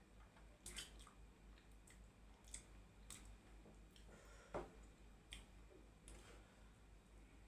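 Faint eating sounds: scattered wet clicks and smacks of chewing at close range, with a somewhat louder smack about halfway through.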